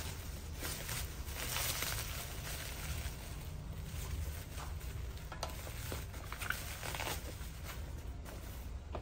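Plastic packaging rustling and crinkling as a parcel wrapped in black plastic is unwrapped, with a few short clicks and taps as a small cardboard box is pulled out and handled.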